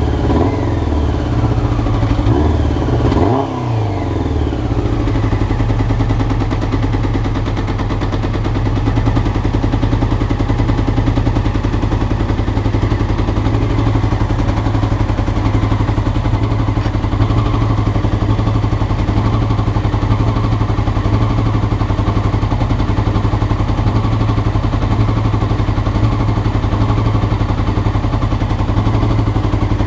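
Carburetted Honda CBR motorcycle engine revved a few times in the first four seconds, then settling to a steady idle.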